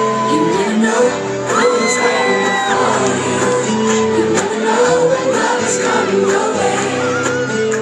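House music playing loud over a nightclub sound system, with a sung vocal line and a crowd shouting and cheering.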